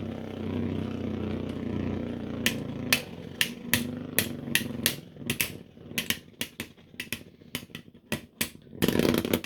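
3D-printed Beyblade tops spinning in a plastic stadium: a steady whir that fades over the first few seconds, then a string of sharp, irregular clicks and clatters as a top runs out of spin. A short rustling burst comes near the end.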